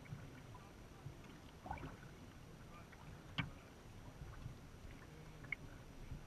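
Quiet lapping and dripping of water against a sea kayak's hull, with a single sharp knock about three and a half seconds in.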